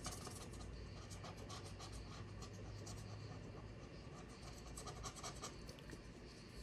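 Faint scratching of a pen on paper, with light rustling of paper being handled.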